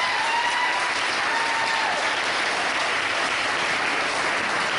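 Audience applauding steadily, with a voice or two heard over it in the first couple of seconds.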